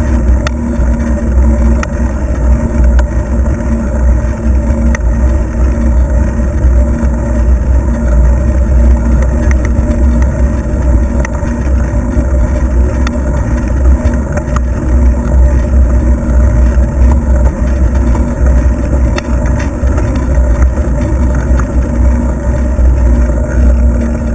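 Wind buffeting the microphone of a camera moving along on a bicycle: a loud, unsteady low rumble, with a few light clicks and rattles over it.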